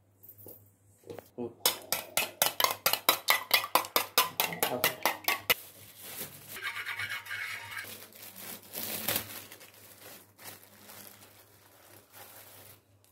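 Metal spoon beating eggs in a steel bowl: fast, regular clinks about six a second for about four seconds. Then softer scraping of a metal spoon inside a glass jar.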